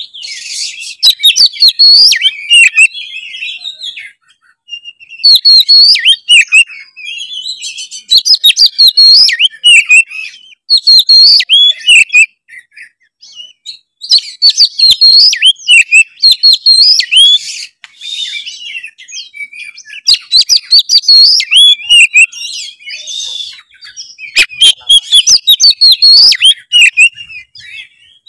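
Oriental magpie-robin (kacer) in full song: loud, rapid, varied whistled phrases of a few seconds each, separated by short pauses, with sharp clicks among the notes.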